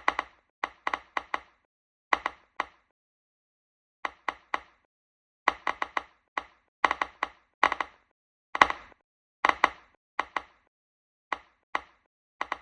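Light, sharp taps and knocks in quick clusters of two to six, with pauses of up to a second and a half between clusters.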